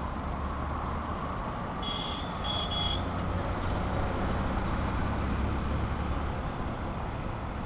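Motorcycle on the move heard through a helmet-mounted microphone: steady low engine and road rumble with muffled wind noise. Two short high beeps come about two seconds in.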